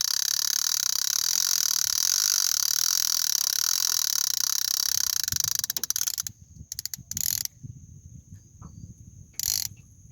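Fishing reel's clicker buzzing steadily as a hooked alligator gar pulls line off the spool, cutting off suddenly about six seconds in, then two short bursts as the fish takes more line.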